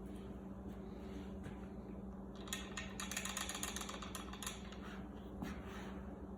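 Measured black powder being poured down a muzzleloader's barrel: a rapid patter of fine grains for about two seconds, starting about two and a half seconds in, over a steady low hum.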